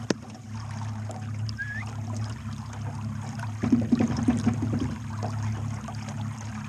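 Jon boat's motor running at a steady pitch while the hull moves through the water, with water rushing along the sides. There is a single sharp knock just after the start, and the water noise gets rougher for about a second midway.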